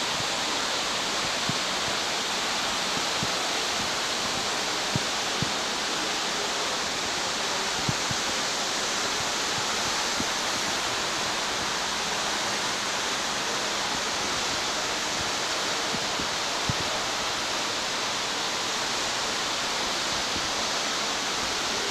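Steady, even rushing hiss like running water or moving air, with a few faint ticks scattered through it.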